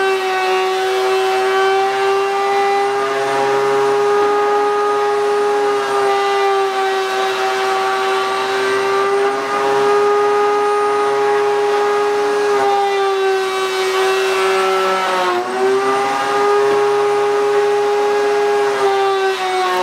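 Table-mounted wood router running at a high, steady whine as its round-over bit cuts the edges of a hard maple lure blank. The pitch sags briefly a few times in the second half as the bit bites into the wood under load.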